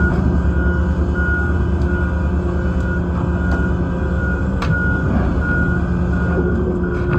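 Large excavator's diesel engine running steadily under a repeating high warning beep, about one beep every 0.7 seconds: a motion or travel alarm. A sharp metallic knock sounds about two-thirds of the way through.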